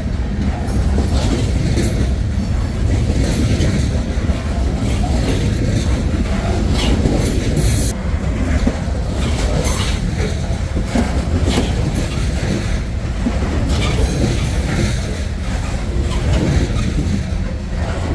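Train cars rolling past at track side: a steady heavy rumble of wheels on rail, with irregular clicks and clatter as the wheels cross rail joints.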